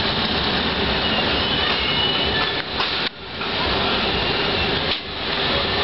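'Das Monster' amusement ride running, its rotating arms and spinning cars giving a steady mechanical rumble and rush with faint high squeals, dropping briefly about three seconds in.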